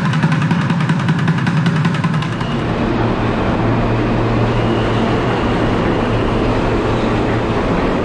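Subway train running: a loud, steady rumble with a low hum. For the first couple of seconds there are rapid, evenly spaced ticks over it, then it settles into a denser, even roar.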